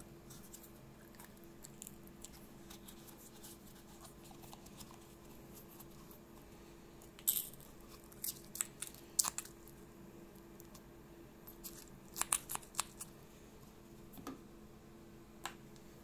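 Scattered short clicks and crackles of rubber hoses and plastic hose fittings from a washing machine being handled and squeezed in the hand, over a faint steady hum.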